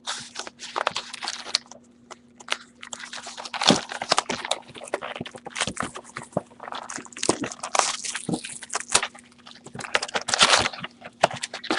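Crinkling, rustling and tapping of shrink-wrapped trading card boxes and foil packs being unwrapped and handled, in many irregular crackly bursts over a faint steady electrical hum.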